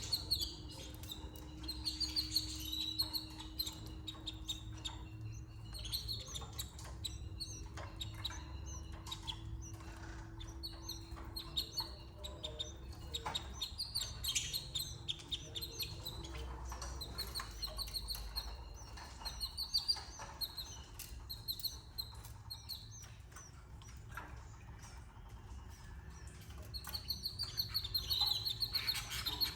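Canaries chirping: groups of short, high chirps, busiest at the start, about halfway through and near the end.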